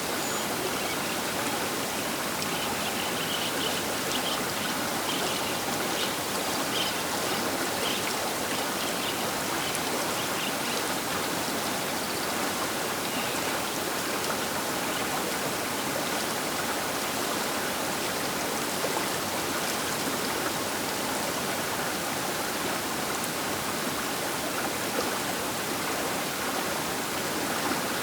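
Baker River's water flowing past the bank: a steady, even rush.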